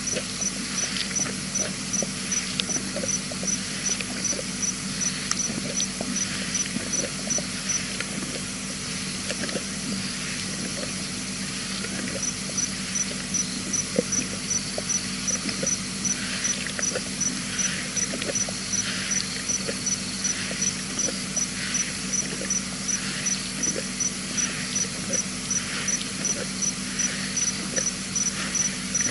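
Lioness licking her fur: repeated short rasping tongue strokes, coming more often in the second half. A high-pitched chirp repeats about twice a second alongside, pausing for a few seconds around a third of the way in.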